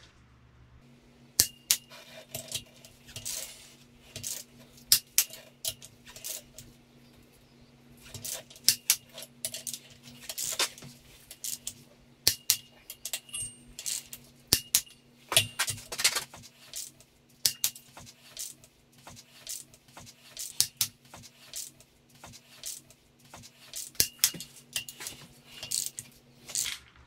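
Ratchet and torque wrench clicking in quick irregular runs as the cylinder head bolts of a Mini Cooper R53 engine are run down and tightened, with a faint steady hum underneath.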